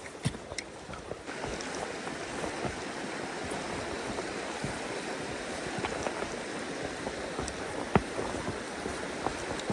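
Mountain stream water rushing over rocks, a steady rush that comes up suddenly about a second in. A few sharp knocks sound over it, the loudest near the end.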